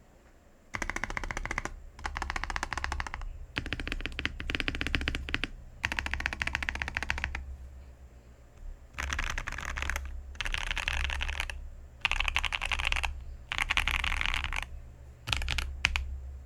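Zifrined ZA646 mechanical keyboard being typed on fast, in about nine runs of rapid keystrokes roughly a second long with short pauses between them.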